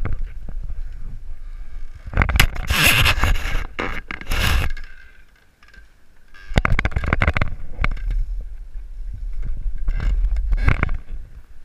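Wind rushing and buffeting over a body-worn camera's microphone during a bungee jump, in two long loud rushes with a short lull between them.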